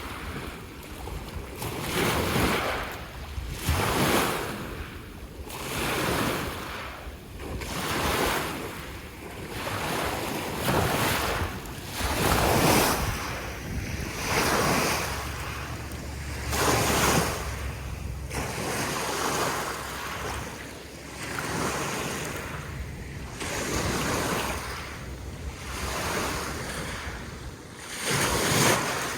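Lake waves washing in on the shore, one swell of water noise every two seconds or so, irregular in strength.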